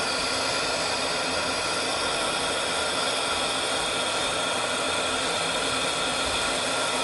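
Oxygen-and-gas lampworking torch burning with a steady hiss.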